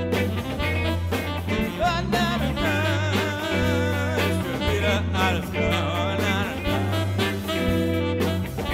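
Background music: a song with a singing voice over a steady, stepping bass line.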